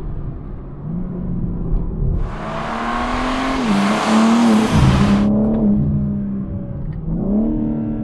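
BMW G80 M3's twin-turbo 3.0-litre inline-six under hard acceleration, its note dropping sharply and climbing again at a few gear changes. For about three seconds in the middle, a loud rushing noise of tyres and air joins it as the car sweeps past.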